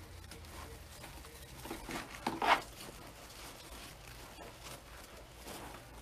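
Plastic deco mesh rustling and crinkling as it is handled, pulled up and tucked into a wreath, with a louder crinkle about two and a half seconds in.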